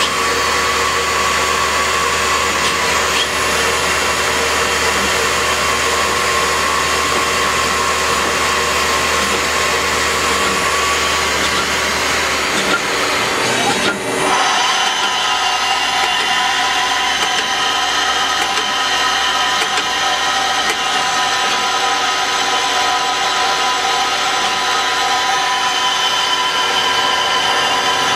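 Citizen L20 Type VII Swiss-type CNC lathe running its cycle dry, without coolant: a steady machine whine of several tones. A low hum stops about halfway through, and after a brief dip the pitches change and the machine runs on.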